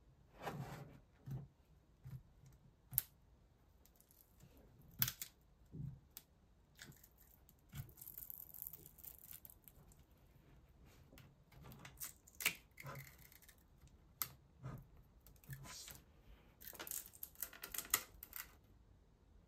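Plastic housing of a LAUNCH X431 PRO3S+ scan tablet being handled and pried apart with a plastic pick. Scattered light clicks and taps of plastic on plastic, a longer scrape partway through, and a quick run of clicks near the end.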